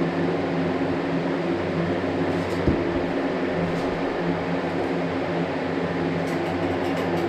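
A motor or machine running steadily: a low, even hum made of several tones over a broad hiss, with one short knock a little under three seconds in.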